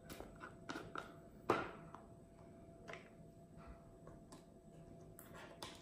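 Faint clicks and taps of hands handling a skin-cream container as the cream is taken out, the loudest about a second and a half in.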